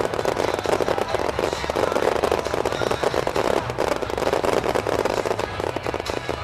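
Fireworks crackling in a dense, continuous stream of rapid small pops and crackles, without a break.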